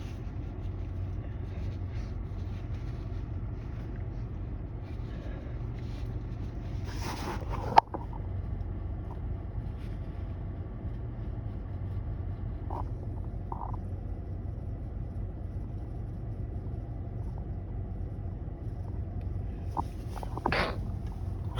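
A stifled sneeze about eight seconds in, a short sharp burst after a breathy build-up, from a person congested with a cold. A couple of faint sniffs follow, and another breathy build-up comes near the end, over a steady low hum.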